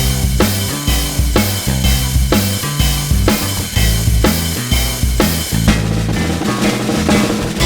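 Background music with a steady drum beat and bass, about two beats a second.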